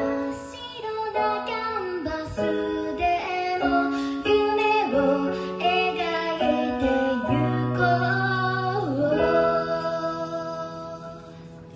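A young woman's solo voice sings a slow melody live into a microphone over keyboard accompaniment with steady held bass notes. The music dies away near the end as the song closes.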